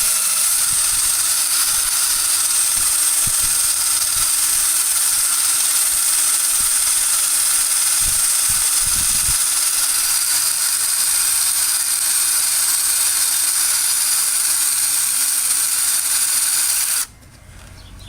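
Small high-speed electric power tool running steadily on a cast-iron vise, a constant whine with a strong hiss. Its pitch rises briefly as it comes up to speed at the start, and it cuts off about a second before the end.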